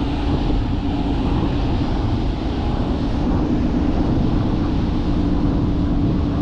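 Wind buffeting the microphone in a steady rush, with a constant low hum running underneath.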